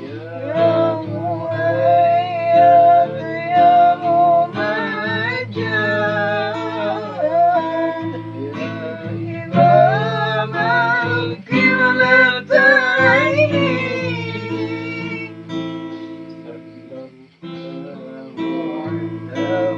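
Acoustic guitar strumming, accompanying a singing voice in a sholawat, an Islamic devotional song. The singer holds long notes with wavering, bending ornaments.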